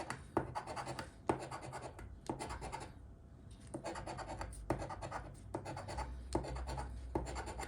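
Scratching the coating off an instant lottery scratch-off ticket. A run of short rasping strokes, each starting with a small tick, comes about once a second, with a brief pause partway through.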